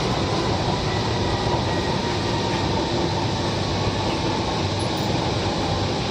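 Steady running noise inside a Kochi Metro train carriage, with a faint steady whine laid over an even rumble and rush.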